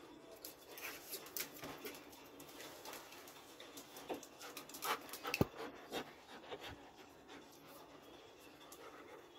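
Doberman panting and snuffling with its nose down at a tiled floor, with a run of short clicks over the first seven seconds. A sharp tap about five and a half seconds in is the loudest sound.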